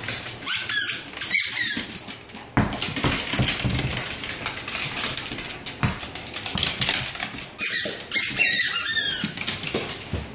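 A Scottish terrier chewing squeaky tennis balls: two runs of quick, high squeaks, one near the start and one about three-quarters through, with clicking and tapping in between.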